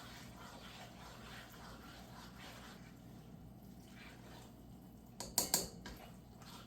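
Pasta being stirred through Alfredo sauce in a pot, with soft wet squishing. About five seconds in there is a quick cluster of sharp clatters.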